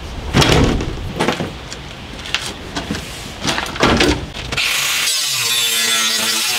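A few knocks and clunks, then about five seconds in a handheld corded power tool starts and runs with a steady buzz, cutting at a window frame sealed all round with silicone.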